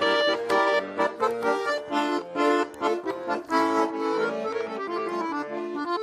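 Accordion playing an instrumental break in a Russian folk-style song: a melody over rhythmically pumped chords, with no singing.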